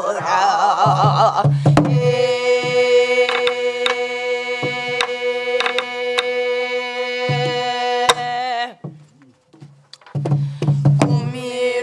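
A group singing a Namdo (southwestern Korean) folk song together, holding one long note for several seconds, with occasional sharp strokes on a sori-buk barrel drum marking the rhythm. The singing breaks off for about a second near the end, then resumes with the drum.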